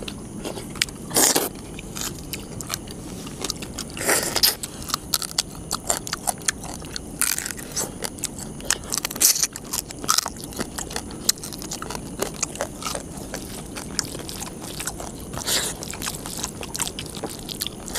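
Two people eating crab curry and rice by hand: crab shells crunching and cracking as they are bitten, chewing, and fingers scraping rice across steel plates. There is a steady patter of small crackles, with a few louder crunches every few seconds.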